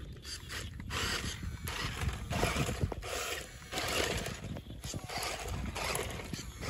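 Toy-grade RC rock crawler driving over a rough, rutted dirt track: its small electric drivetrain runs in spells as the throttle comes and goes, with clatter and clicks from the tyres over dirt clods and a low rumble underneath.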